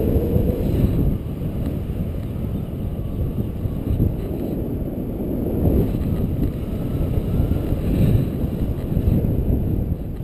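Wind rushing over a paraglider pilot's helmet-camera microphone in flight: a steady, low rumbling buffeting of air.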